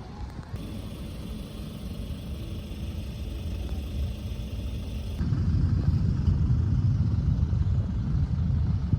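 Low rumble of a city bus heard from inside the cabin, growing louder about five seconds in as the bus gets moving.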